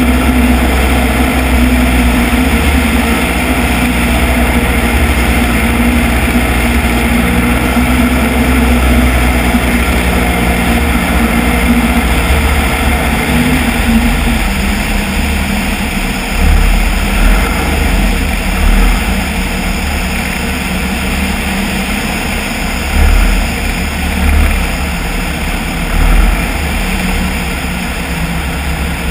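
Piper Cub's piston engine and propeller droning steadily in flight, with wind rushing over the wing-mounted microphone. About halfway through the engine note drops and quietens as power comes back for the descent, and several low wind thumps buffet the microphone.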